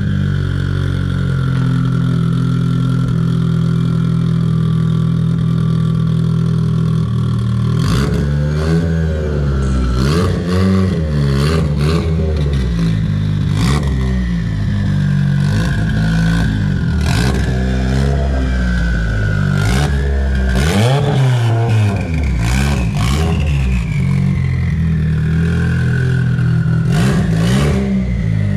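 Big-turbo Mitsubishi Lancer Evo with a side-exit exhaust, running on its first start-up and not yet mapped. Its turbocharged four-cylinder idles steadily for several seconds, then is revved in a series of short blips that rise and fall in pitch. Sharp clicks come in among the revs.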